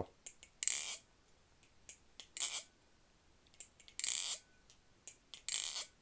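Balisong (butterfly knife) clone being flipped: the handles and blade clack together in four short metallic rattles about a second and a half apart, with light clicks between. The pivot bushings are freshly cleaned and oiled, the oil worked in.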